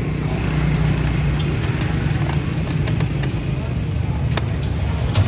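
Steady low rumble of street traffic or a nearby engine running, with voices in the background and a few light clicks near the end.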